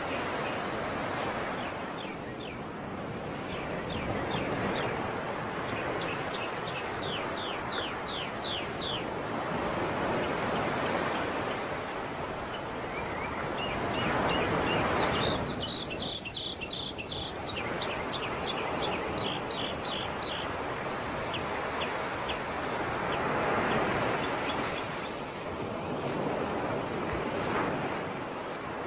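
Sea waves washing ashore, swelling and falling away every several seconds, with a small bird singing fast trills of short high notes over the surf several times.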